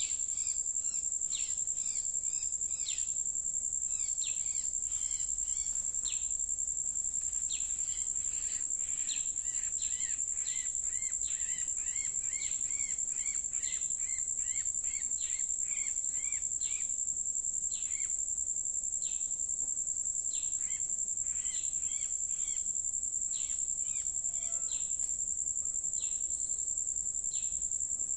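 A steady, high, shrill insect drone runs throughout. Over it come many short bird chirps and calls, with a quick run of dipping notes about halfway through.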